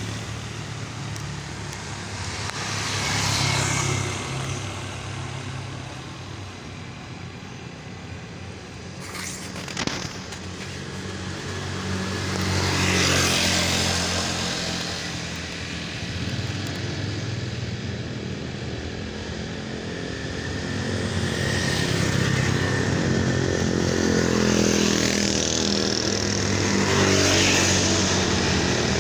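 Road traffic: motor vehicle engines humming and swelling as they pass, several times over.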